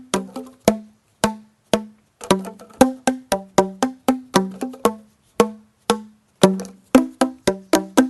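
Tuned lengths of black plastic golf-club protector tubing, cut to the notes G, A, C, D, E and high G, being whacked one after another to play a melodic pattern. Each hit is a short pitched note that dies away quickly, about three to four a second, with a few brief pauses.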